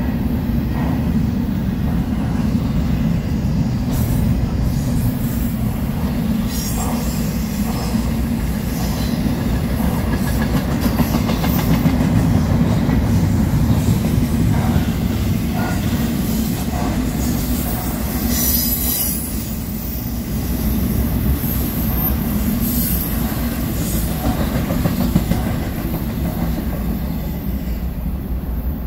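BNSF double-stack intermodal freight train rolling past: a steady low rumble of steel wheels on rail, with brief high wheel squeals a few times, the clearest about 19 seconds in.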